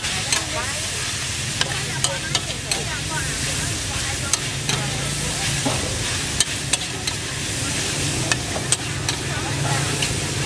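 Metal spatula scraping and clinking against a steel wok as greens are stir-fried, over a steady hot sizzle. The clinks come irregularly, about one or two a second.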